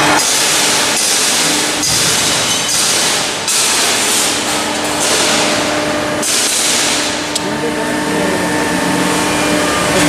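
Loud workshop machinery noise: a steady hiss with a faint hum, changing abruptly every second or two.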